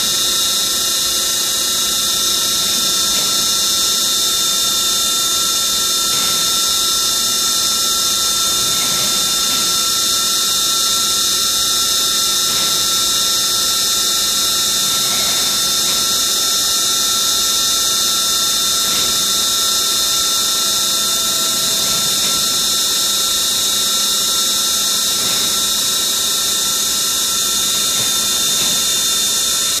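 Alloyd rotary blister sealer running: a steady, unchanging machine hum and hiss with a constant high whine.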